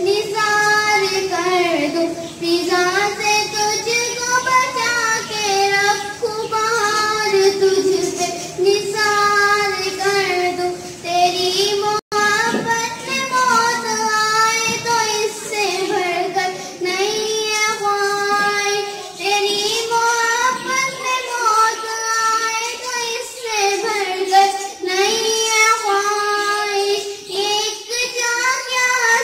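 A young girl singing solo into a handheld microphone, in long held notes with vibrato. The sound cuts out for an instant about twelve seconds in.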